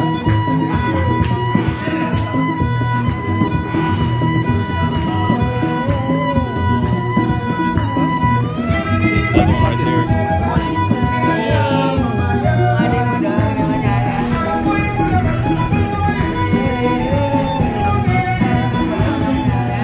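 Background music with a fast shaker rhythm; a melody line comes in about eight seconds in.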